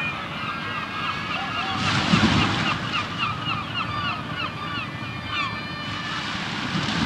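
Waves washing in a steady rush, with a louder surge about two seconds in, under many short chirping calls, like a flock of birds calling over the water.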